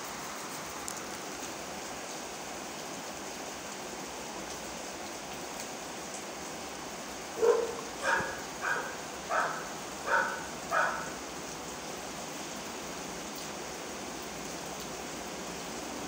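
Steady rain falling, with a dog barking six times in quick succession about halfway through.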